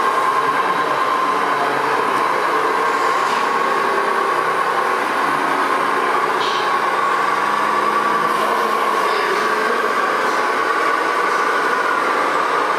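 Radio-controlled model truck running: a steady whine from its drive, the pitch wavering slightly.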